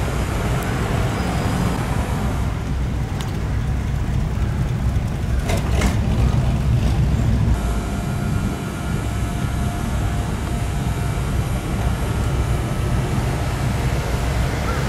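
Hot rod engines running at low speed as the cars pull away one after another, a steady low exhaust note, slightly louder about halfway through.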